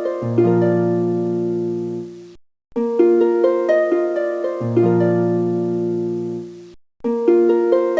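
Background music: a short plucked-string phrase of rising notes settling on a low held note, looping twice with a brief dead silence between repeats.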